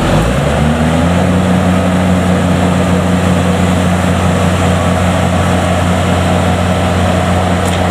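Rice combine harvester's diesel engine revving up in the first second, then running steadily at high revs under load.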